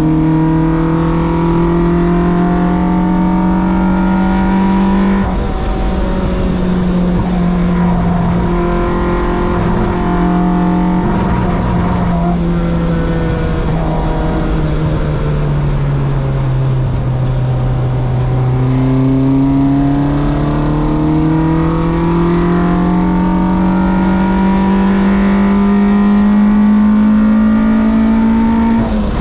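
A track-day car's engine running hard on the circuit. The note climbs, breaks at a gear change about five seconds in, sinks slowly as the car slows in the middle, then climbs steadily for about ten seconds before dropping again at the end.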